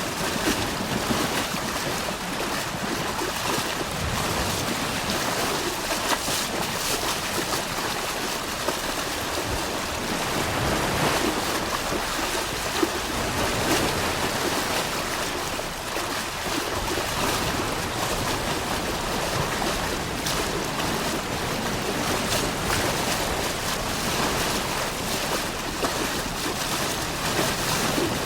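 Steady rushing noise of rough surf and wind, swelling and easing slightly every few seconds.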